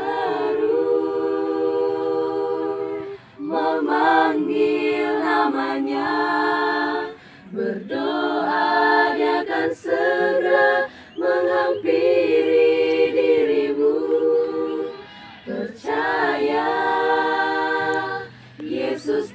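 A small group of young women singing a cappella in harmony, long held chords in phrases broken by short breaths every three to four seconds.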